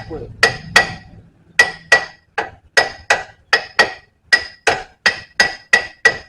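A hammer striking metal over and over, about fifteen sharp blows at two to three a second in a loose rhythm, each with a short metallic ring.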